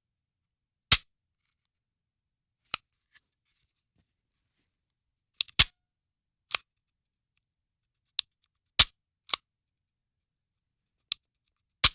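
Handgun dry-firing: a series of sharp metallic clicks from the hammer or striker falling on an empty chamber, about ten at irregular intervals, some in quick pairs.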